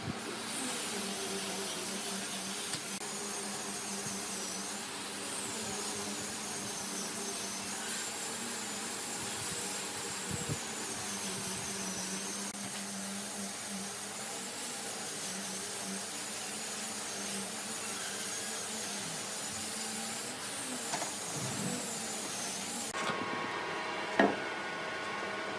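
A high-speed electric power tool running with a high whine that dips and recovers as it works the material. The whine cuts off abruptly near the end, leaving a quieter, steadier machine hum and one sharp knock.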